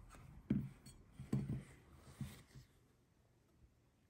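Kitchen knife cutting boiled new potatoes on a wooden cutting board: a few soft knocks as the blade meets the board in the first two seconds or so.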